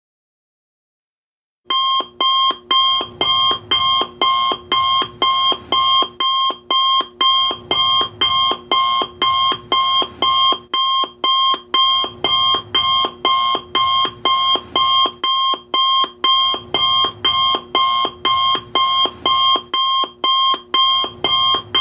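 Alarm bell going off as the countdown ends: silence, then nearly two seconds in a loud bell starts ringing in rapid, evenly repeated strikes, about two to three a second.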